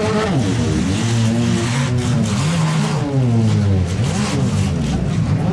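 Engines of several mid-size and compact demolition derby cars revving hard and easing off again and again, their pitch rising and falling in overlapping sweeps.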